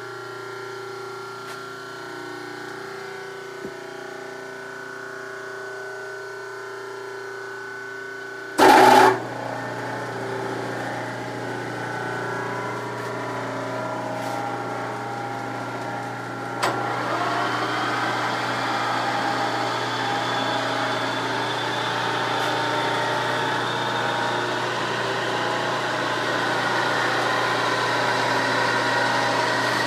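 Rotary phase converter running with a steady electric motor hum. About nine seconds in comes a loud, half-second clunk, and after a click about seventeen seconds in, the converter-powered metal lathe runs, its gear noise growing gradually louder.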